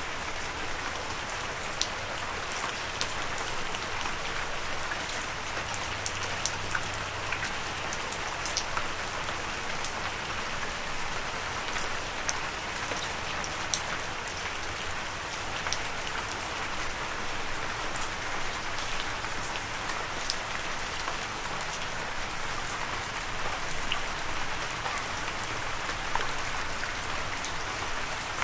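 Steady rain falling on a surface, an even hiss with scattered sharp drips and drop impacts.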